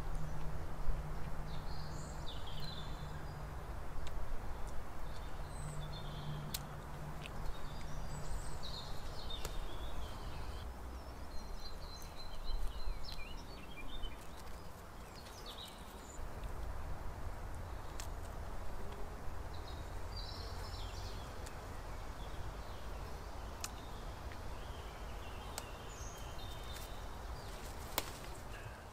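Outdoor ambience of small birds chirping and singing on and off over a steady low rumble, with a few sharp clicks.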